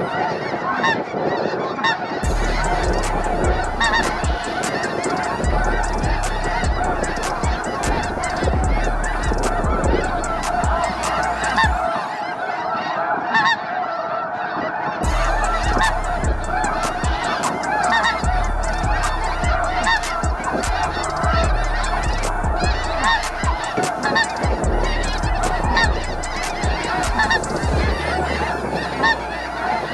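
A huge flock of snow geese calling overhead, a dense, unbroken clamour of many overlapping honks. Wind rumbles on the microphone throughout, except for a short lull near the middle.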